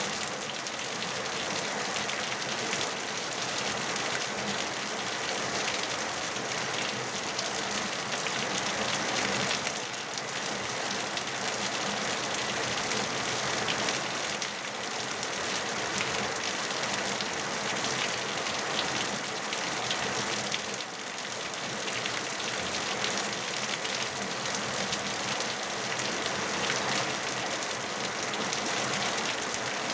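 Steady rain falling, an even hiss with a faint patter of drops landing on a surface.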